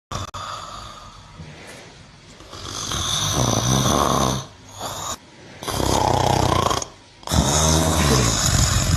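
A cow snoring: three long loud snores, each a second or more, with a short one between the first two.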